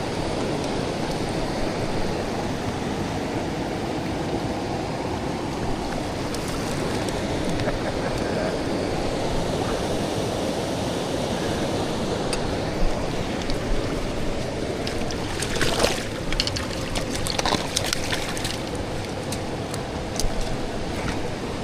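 River water flowing, a steady rushing. In the second half a few short clicks and knocks sound over it.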